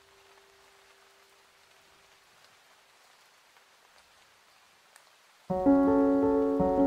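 Faint steady rain hiss, with a held low note fading away over the first few seconds. About five and a half seconds in, a piano piece starts abruptly with a loud chord and plays on over the rain.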